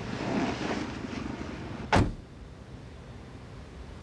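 A car door shutting with a single heavy thud about two seconds in, after a second or so of rustling movement.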